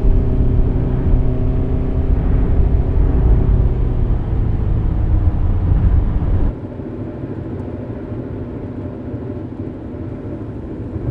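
Loud low rumble with a few sustained low tones that sink slightly in pitch, cut off abruptly about six and a half seconds in. What remains is a quieter, steady car road noise.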